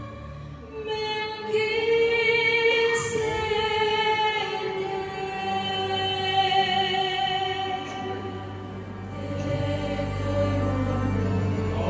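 Church choir singing a slow hymn in long, held notes, heard through the church's sound system in a reverberant nave. The singing dips briefly near the start and again about eight seconds in.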